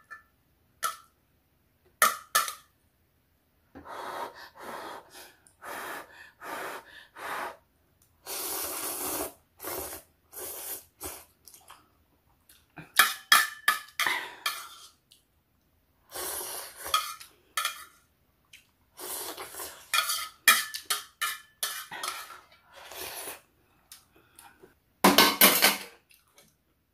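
A person eating instant ramen: slurping and chewing noodles, with metal chopsticks clicking and scraping on a thin aluminium pot lid, in short separate strokes. A longer slurp comes about eight seconds in, and a louder burst about a second long comes near the end.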